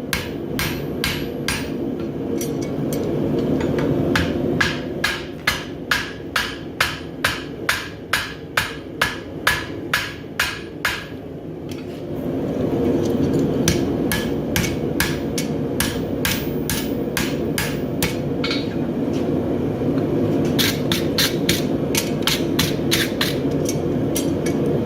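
Hammer blows on a hot steel horseshoe bar on an anvil, a steady series of about two strikes a second, flattening out the lip left at a fresh forge weld. The hammering stops about 11 seconds in and starts again in quicker runs later, over a steady rushing noise that grows louder after the pause.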